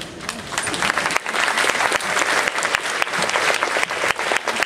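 Audience applauding: many hands clapping, swelling over the first second and then holding steady.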